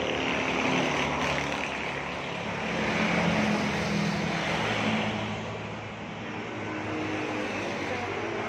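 Motor-vehicle traffic passing by: a continuous engine hum and road noise that swells about a second in and again for a couple of seconds mid-way, then eases off.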